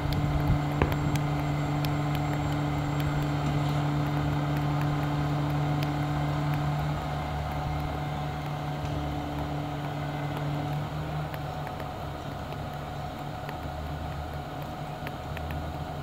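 Diesel engine of a truck-mounted crane running steadily to power the crane as it lowers a tree trunk. The hum eases a little after about ten seconds.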